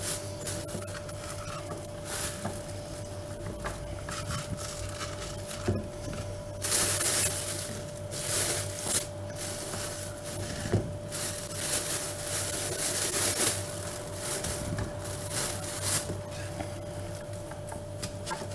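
A plastic freezer bag rustling in irregular bursts, with light scraping as frozen tomato slices stuck to a plastic cutting board are pried loose with a silicone spatula.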